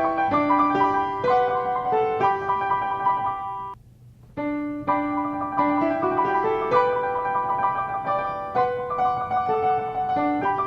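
Piano music, a lively run of notes that breaks off for about half a second near four seconds in, then carries on.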